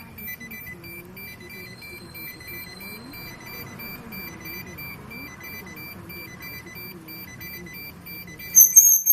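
Electronic beeping at about three beeps a second. Near the end a much louder, high-pitched electronic sound cuts in, a custom horn sound played through a car horn sound-changer.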